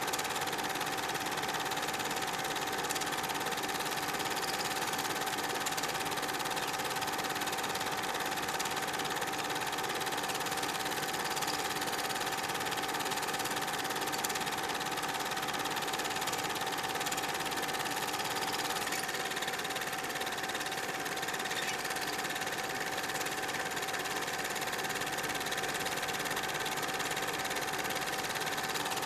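Super 8 film projector running steadily: an even mechanical running noise with a constant whine.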